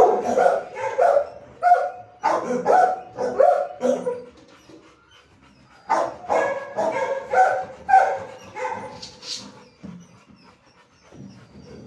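Dogs barking in a shelter kennel, in runs of quick barks with a pause of about two seconds in the middle and a quieter stretch near the end.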